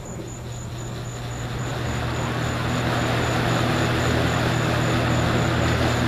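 Vintage Toastmaster 4425 box fan switched on at high: its McGraw-Edison motor hums, and the rush of air from the blades builds over the first few seconds to a steady whir as it comes up to speed. A metal-on-metal noise runs along with it, which the owner wants to cure with washers.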